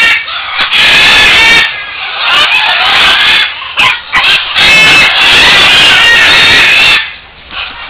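Great green macaws (Buffon's macaws) calling loudly: a run of long, harsh, raucous squawks with short breaks between them, dying down near the end.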